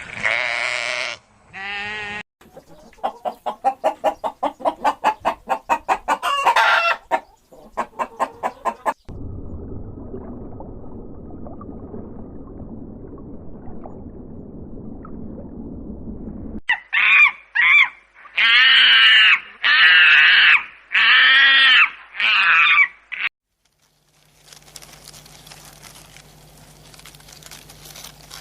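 Chickens clucking in quick repeated bursts, then, after a stretch of low steady noise, a series of loud calls typical of a rooster crowing.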